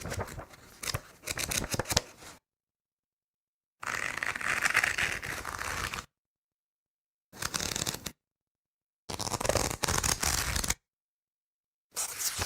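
Paper pages being turned by hand: five separate rustling, crackling page turns with dead silence between them, the longest about two seconds and the last starting near the end.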